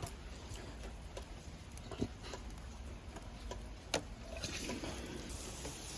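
Scattered light taps and drips, then about four seconds in a garden sprinkler's water spray starts hissing and grows stronger.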